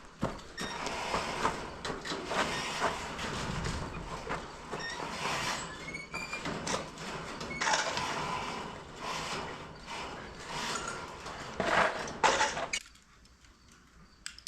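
Roll of chicken wire rattling and scraping as it is unrolled and pulled across a wooden frame, an uneven clatter of small metallic clicks that stops shortly before the end, followed by one sharp click.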